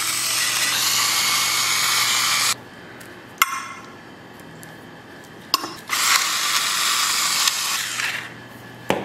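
Electric gravity-activated salt and pepper grinder running, its small motor whirring as it grinds over the chicken, stopping about two and a half seconds in. A couple of light clinks, then the grinder runs again for about two seconds past the middle, and a knock near the end.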